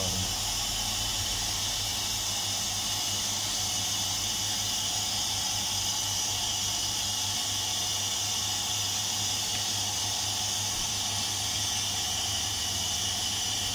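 Ardmel ultrasonic welding sewing machine switched on, giving a steady hiss with a low electrical hum underneath.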